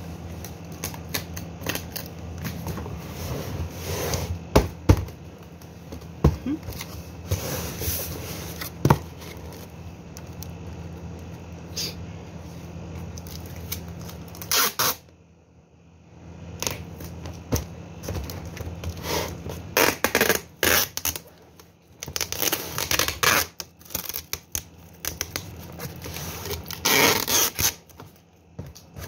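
Clear packing tape and corrugated cardboard being handled: irregular bursts of scraping and tearing as tape is pulled and pressed onto the cardboard, over a steady low hum.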